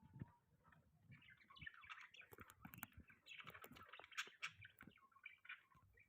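Budgerigars chirping and chattering faintly, a busy run of quick short chirps starting about a second in, with a few small clicks among them.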